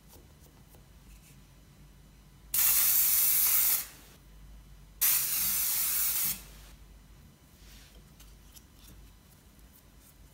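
Cooking spray hissing out in two steady bursts of about a second each, coating small fluted metal tart molds.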